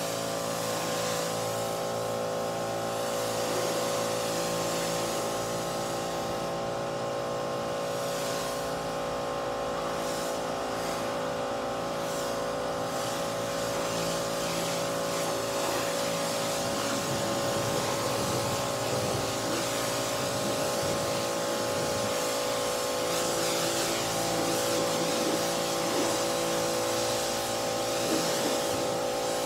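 Electric pressure washer running steadily, its motor and pump giving a constant whine, with the hiss of the water jet spraying onto a car's bodywork.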